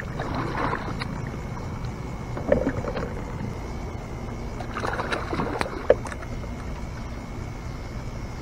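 Water splashing beside a small boat as a hooked catfish is brought to the side, in bursts about a second in, near three seconds and again around five to six seconds, with a few sharp knocks against the boat, over a steady low rumble.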